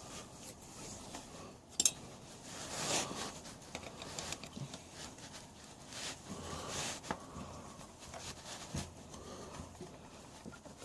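Faint, scattered clicks and rustling from hand tools and parts being handled while working on a pocket bike, with one sharp click about two seconds in.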